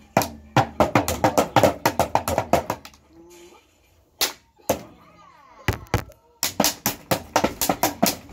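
A fast run of sharp hand slaps, several a second. They break off for about two and a half seconds in the middle, apart from one single hit, then start again.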